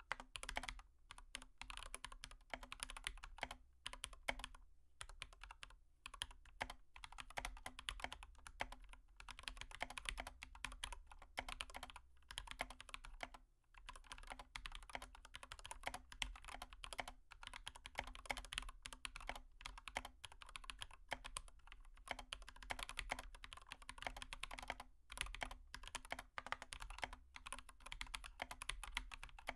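Stylus tapping and scraping on a tablet's glass screen while drawing: a quick, dense run of clicks and scratches with a few short pauses.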